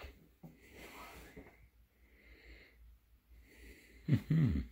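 Soft rustling of clothes being handled and folded on a bed. Near the end comes a brief, low vocal sound lasting about half a second.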